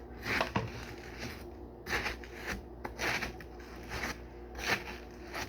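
Kitchen food-preparation noises: irregular short scrapes and crackles, about one or two a second, as watermelon is handled and cut in a bowl.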